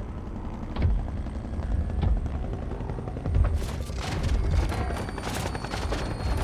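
Film sound design: heavy, booming footsteps of a giant robot on a metal deck, about one a second. From about halfway through, a helicopter's rotor chops in as it approaches, with sharp clanking strikes over it.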